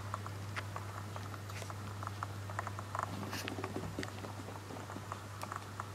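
A cat's paws shifting on a laptop keyboard, with irregular light clicks and taps of keys and plastic under its weight, over a steady low hum.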